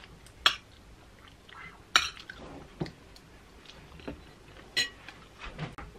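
Cutlery clinking against a plate during a meal: about five separate clinks, some ringing briefly, the loudest about two seconds in.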